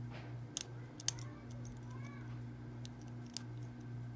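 Small metallic clicks of a lock pick and tension wrench working the pin stack inside a Master round body padlock during single-pin picking, a few sharp clicks about half a second, a second and three and a half seconds in among fainter ticks, over a steady low hum.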